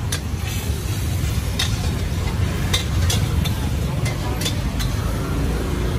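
Busy street ambience: a steady low traffic rumble, with a scattering of sharp clicks and clinks.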